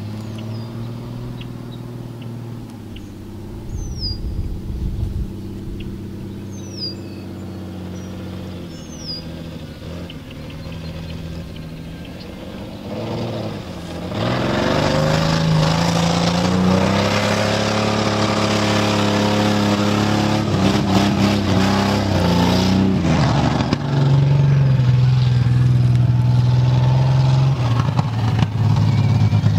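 Ford Explorer's engine running as the truck drives off-road through a field, steady and moderate at first. From about halfway it is much louder, revving up and down over a rushing noise.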